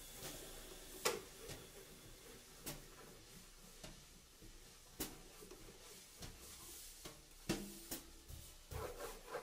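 Swing drumming on a drum kit: sparse snare and cymbal hits, five sharp strokes spread unevenly over a light background.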